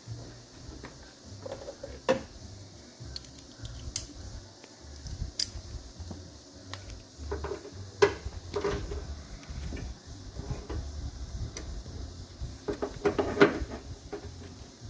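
Hand tools and latch screws clinking and knocking against metal while fasteners are driven into a new door latch inside a Ford F250 Super Duty rear door. Scattered sharp clicks, with a loud clank about eight seconds in and a cluster of knocks near the end.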